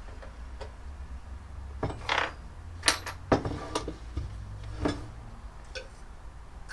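Metal clinking and knocking as a steel motorcycle fork tube and tools are handled and set down on a wooden workbench: a handful of separate sharp clinks between about two and five seconds in, one of them a little drawn out.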